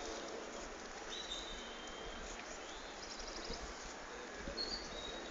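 Birds chirping and whistling in short high notes, a quick trill of chirps about three seconds in, over a steady background of outdoor noise.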